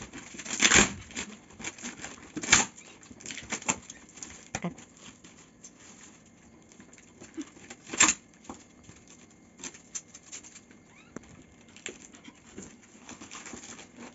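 Packing tape being ripped off a cardboard box: three loud rips, the loudest about a second in, with rustling and small clicks of cardboard handling in between.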